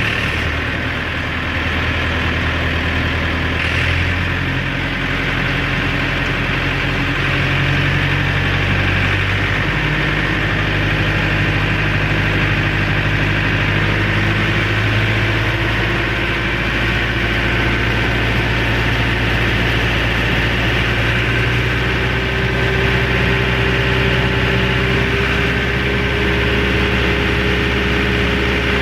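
A heavy engine running steadily at low speed, its note shifting slightly a few times, with a faint tone slowly rising in pitch over the second half.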